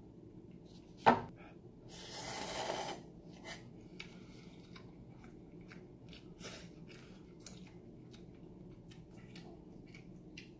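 Close-up eating sounds from a cup of instant noodles: a sharp click about a second in, then a loud slurp rising for about a second, followed by small scattered clicks and smacks of the fork against the cup and of chewing.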